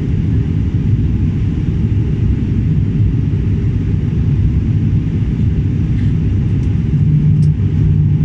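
Cabin noise of a Cebu Pacific ATR 72 turboprop airliner in flight: a steady, loud low rumble of the engines, propellers and airflow. A steady low drone comes in on top about seven seconds in.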